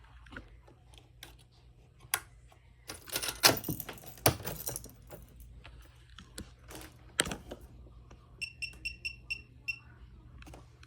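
Clicks and rattles of hands working switches and small parts, loudest about three to four and a half seconds in. Near the end comes a quick run of about seven short high-pitched beeps from a small electronic beeper.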